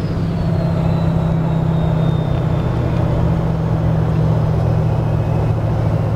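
Ford 7.3L Powerstroke diesel running with a BD Thruster 2 turbo's whistle falling in pitch and fading out over the first few seconds, as the turbo spools down. The engine's deep steady running continues underneath.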